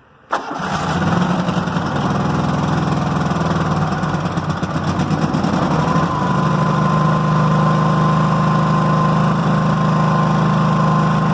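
Toro Wheel Horse lawn tractor engine starting at once after a click, running a little unevenly for a few seconds and then settling into a steady run, with a thin steady whine joining about halfway. The tractor's charging circuit, just repaired, is working with the engine running.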